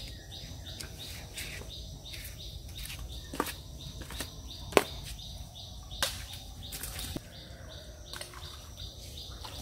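Birds chirping repeatedly over a steady high hum of insects, with a few sharp clicks, the loudest about five seconds in.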